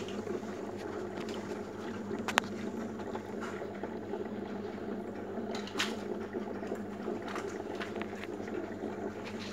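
Aquarium water bubbling over a steady low pump hum, with a sharp click about two and a half seconds in and a few fainter ones.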